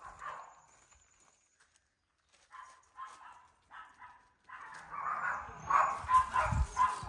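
Dog barking in short repeated barks. After a pause of about a second and a half it barks again, growing louder and denser over the last few seconds, with a dull bump near the end.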